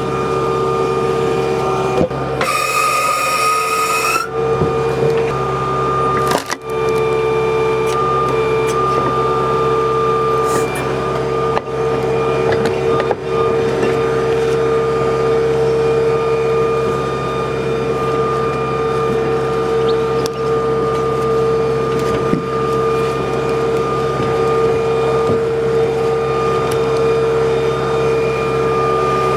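A Kubota tractor's engine runs steadily with a whine from the hydraulics driving a three-point log splitter. About two seconds in, a louder, higher whine rises slightly for about two seconds as the splitter works, and a few sharp knocks follow.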